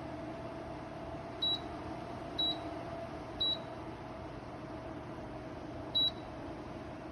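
Dreo Cruiser Pro tower fan running with a steady hum, and four short high-pitched beeps from it as its settings are changed: three about a second apart, then one more a few seconds later.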